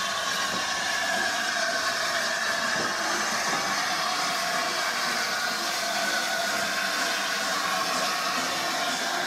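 Steam locomotives, the LNER A4 Pacific 4464 'Bittern' coupled behind a GWR engine, moving slowly along the depot tracks with a steady hiss of steam and rail noise.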